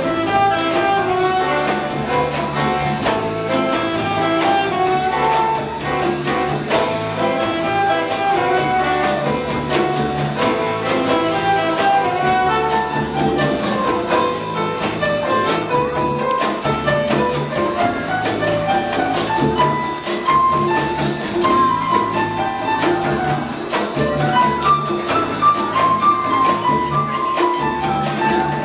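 Small student jazz combo playing live: piano, electric bass, drum kit and hand drums under a melody line, with a steady cymbal beat.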